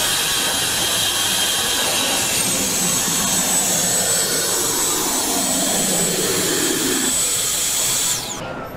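A machine's motor running with a steady loud rush and a thin high whine that steps up in pitch briefly near the start, then stops abruptly near the end.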